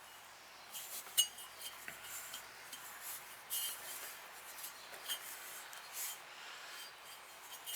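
Glaze-fired ceramic pots being handled: scattered light clinks and scrapes of pottery against pottery or the kiln shelf, a few with a brief ring.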